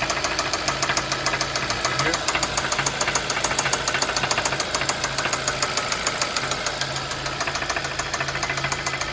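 2014 Hyundai Sonata's 2.4-litre four-cylinder engine idling just after starting, with a rapid, even knocking and ticking. The owner takes this for rod knock and lifter tick, after the engine ran low on oil, down to 3 of its 5 quarts.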